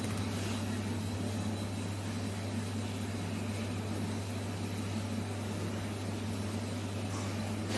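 Steady low electrical hum over a constant background hiss, unchanging throughout; no distinct sound stands out above it.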